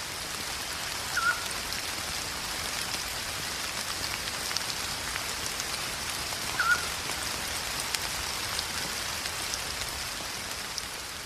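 Steady rain with many small drop ticks. A short chirping call sounds twice, about a second in and again some five seconds later.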